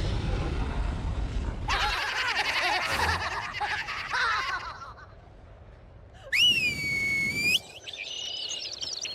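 Cartoon sound effects: a low rumble, then a burst of many high wavering cries and chirps. About six seconds in comes one loud long whistle that rises at its end, followed by quick bird-like chirps as a flock of cartoon birds flies in.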